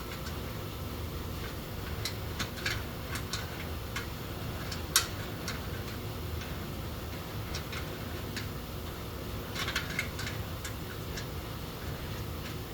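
Scattered light metallic clicks and clinks of hand tools and bolts being handled while refitting an exhaust. One sharper click comes about five seconds in, over a steady low hum.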